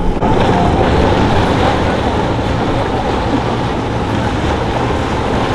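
Sportfishing yacht's engines running steadily as it docks, with water churning and wind noise.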